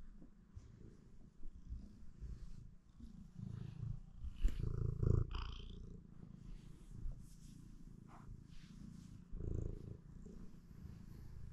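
Tabby cat purring while being stroked, a low rumble that swells and fades with each breath. A brief louder noise comes about halfway through.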